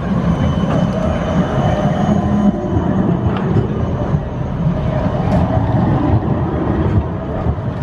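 Siemens Combino tram rolling past close by, its wheels rumbling on the rails, with a few light clicks.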